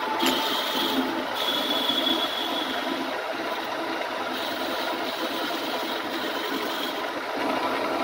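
Milling machine with its cutter spinning and taking a cut across a metal block, a steady cutting noise with a high whine that comes and goes.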